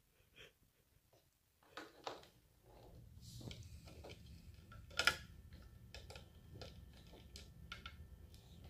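Light clicks and taps of small plastic doll figures being handled and set down on a plastic toy playset, the sharpest click about five seconds in. A faint low hum starts about three seconds in.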